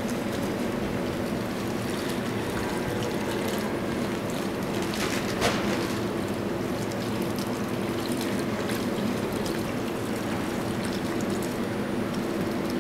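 Hands sloshing and splashing through wet feed mash in a steel trough, over a steady machine hum in the barn. One sharper knock about five seconds in.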